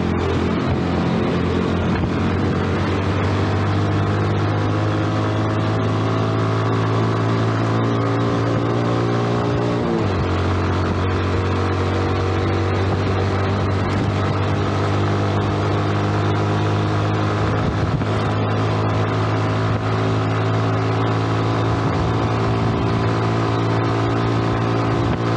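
Yamaha underbone motorcycle's small single-cylinder engine running steadily while riding at a constant speed. The engine note dips briefly about ten seconds in, then holds steady again.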